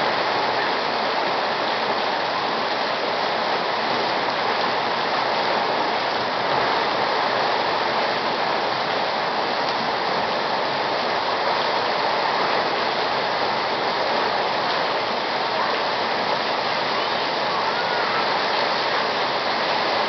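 Torrential rain pouring down onto pavement and parked cars, a dense, steady hiss that does not let up.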